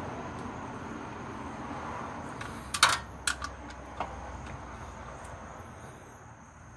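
A few sharp metallic clicks and clinks from tightening the oil pan drain bolt, bunched about three seconds in with one more a second later, over a steady background hiss.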